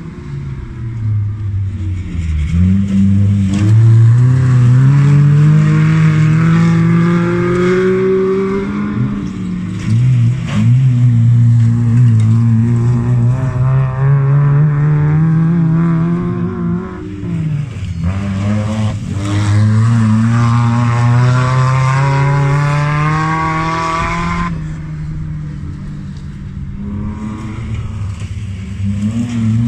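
Autocross cars' engines accelerating hard on a dirt track, the engine notes climbing in pitch, dropping back at each gear change and climbing again, as several cars pass one after another. The sound eases off near the end.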